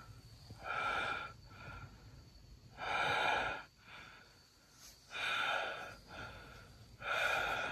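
A person's breathy exhalations or puffs of blown air, four of them, about two seconds apart.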